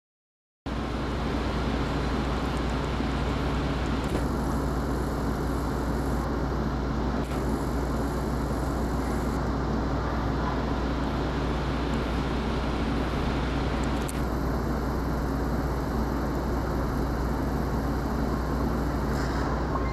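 Steady street traffic noise with a strong low rumble, starting suddenly just under a second in.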